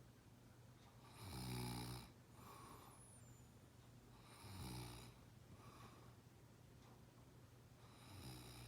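Heavy snoring from a sleeper: three loud snores about three seconds apart, each followed by a softer breath out.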